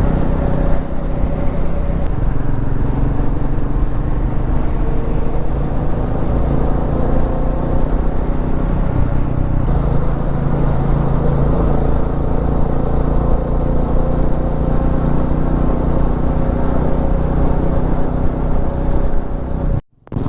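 Royal Enfield Meteor 350's single-cylinder engine running at a steady cruise, heard under continuous wind and road noise from the moving motorcycle. The sound drops out for a moment near the end.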